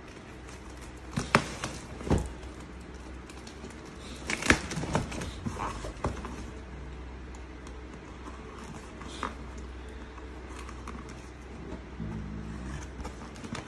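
Hands scratching and picking at packing tape on a cardboard carton, with scattered sharp knocks and crinkles of the cardboard, the loudest about a second in and again about four and a half seconds in.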